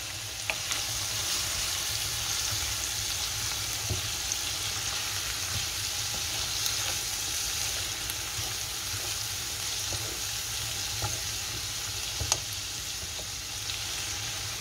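Beef liver and onions sizzling in oil in a nonstick frying pan while being stirred with a wooden spatula, a steady frying hiss with a few sharp clicks.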